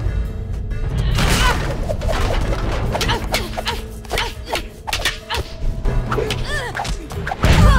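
Kung fu film fight sound effects: a quick run of punch and staff-strike hits and whooshes over the film's music, with the heaviest hit near the end.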